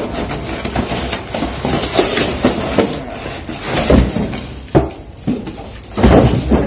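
Cardboard box and packing being handled and a plastic-wrapped fan motor pulled out: rustling and crinkling with irregular knocks and thumps, loudest about four seconds in and again near the end.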